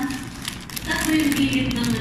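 Thin plastic bread bag rustling and crinkling in short clicks as it is handled, with a woman's voice starting about a second in.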